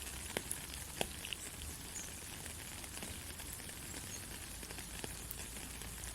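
Steady soft rain falling, with a few sharper drop ticks, the loudest about one second in.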